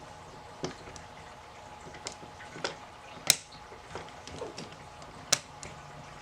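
Irregular sharp clicks and light taps of a hand tool working a nut on a bolt while tightening it, two of them louder. A faint steady hum runs underneath.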